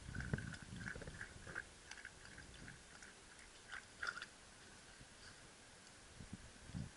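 Shiba Inu lapping water from a stainless steel bowl: quick runs of wet laps, with a short lull before the lapping picks up again near the end.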